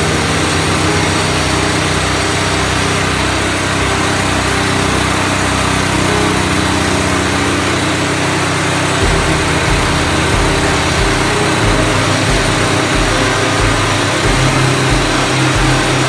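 Gas engine of a Norwood LumberMate LM29 portable bandsaw mill running steadily, its low beat changing about halfway through.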